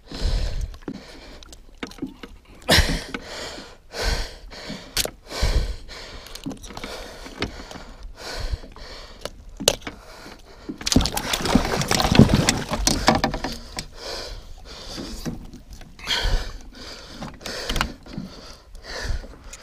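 Irregular thumps and knocks on a fishing boat as a landing net and a large musky are handled at the gunwale. About eleven seconds in, a louder rush of water and handling noise lasts roughly two seconds.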